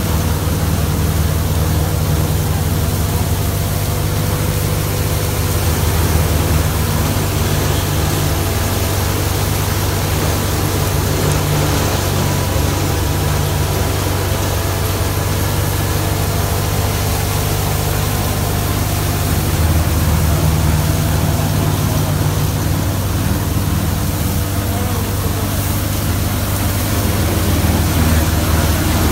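Tractor-driven NJT multicrop thresher running steadily under load as crop stalks are fed in, together with the tractor engine powering it: a loud, continuous low hum that swells slightly now and then.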